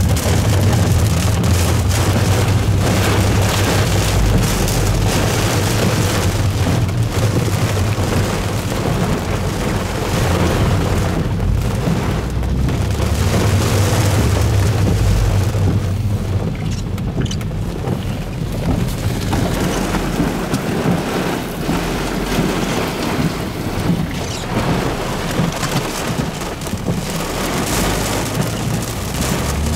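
Heavy rain drumming on a car's windshield and roof, heard from inside the moving car. A deep low rumble runs under it through the first half and fades about halfway through.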